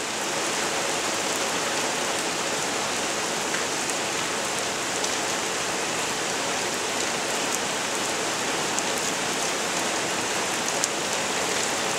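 Heavy rain coming down steadily: an even hiss with scattered tiny drop ticks.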